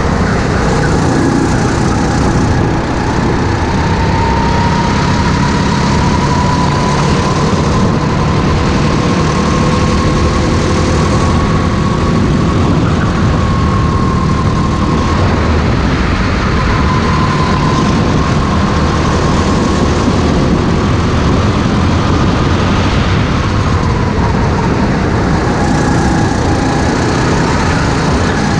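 Racing kart engine running hard around the track, heard from onboard; its pitch rises and falls gently as the kart speeds up and slows for corners.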